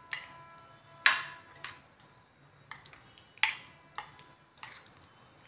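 Metal spoon clinking against a ceramic bowl while stirring chicken marinade: about eight sharp clinks at uneven intervals, the loudest about a second in.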